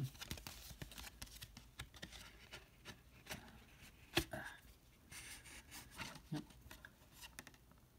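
Faint rustling, sliding and scattered light clicks of a cardboard disc sleeve being handled, folded open and a disc drawn out of it, with one sharper click about four seconds in.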